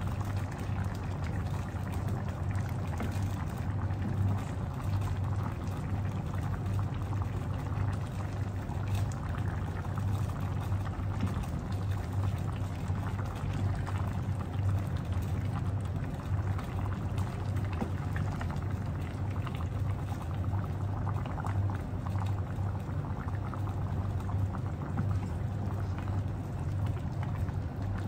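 Coconut cream simmering and bubbling in a pan on a gas stove, stirred with a wooden spatula, over a steady low hum.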